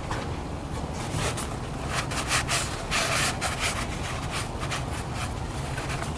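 Irregular rubbing or scrubbing strokes, thickest from about two seconds in, over a steady low rumble.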